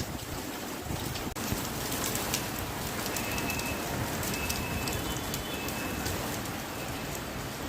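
Steady rain falling, with many single drops ticking close by. A few short, high, thin notes sound in the middle.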